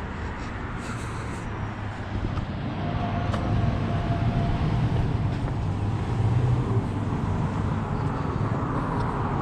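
Road traffic on a city street: cars driving past, a steady rush of engine and tyre noise that grows louder about three seconds in.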